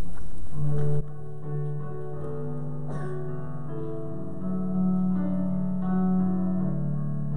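Keyboard instrument playing a slow hymn introduction in long held chords. Before it starts, a loud steady rushing noise stops abruptly about a second in.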